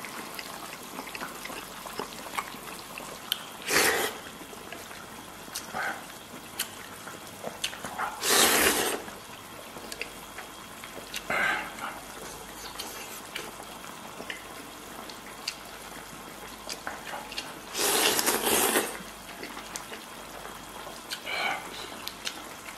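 Loud slurping of meat and spicy broth, five times, two of the slurps about a second long, between quieter chewing and small clicks of chopsticks against a glass bowl.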